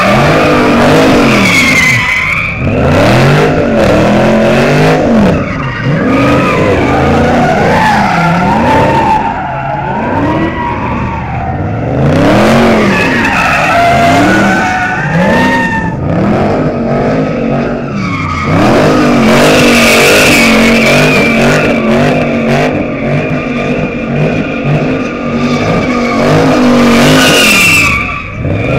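Dodge muscle cars doing donuts: the engine revs up and down in repeated surges while the tyres screech and spin. About two-thirds of the way in, the revs are held high and steady for several seconds, then drop near the end.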